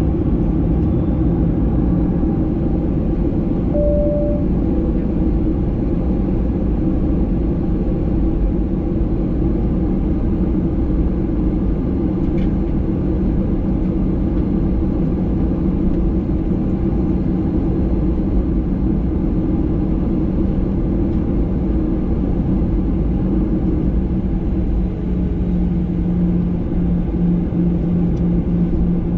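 Inside the cabin of a Boeing 737-800: its CFM56 turbofan engines and airframe give a steady rumble with a low hum, which grows stronger near the end.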